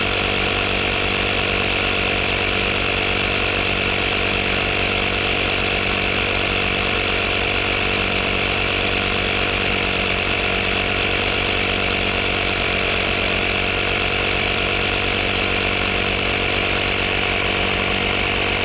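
Auto XS digital tyre inflator's small piston compressor running steadily, a fast even chatter with a buzz, as it pumps a car tyre up toward its preset 35 psi.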